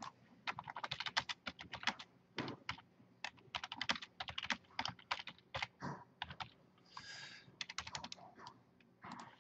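Typing on a computer keyboard: quick, irregular key clicks, several a second, with a brief soft hiss about seven seconds in.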